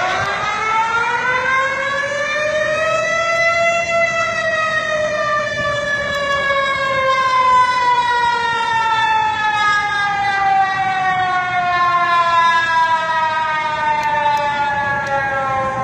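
Warning siren sounding one long wail: its pitch climbs for about four seconds, then sinks slowly for the rest of the sound, and it stops just before the end.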